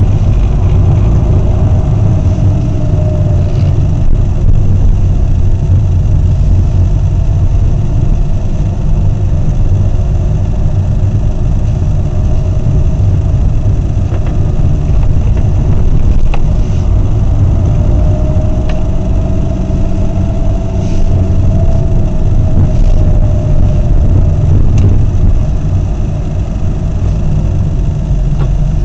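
A motor vehicle's engine running steadily at low speed, with a heavy low rumble and a faint engine note that rises and falls slightly.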